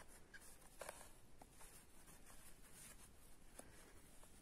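Near silence, with faint scattered rustles and ticks of a yarn needle and cotton yarn being drawn through tightly crocheted fabric.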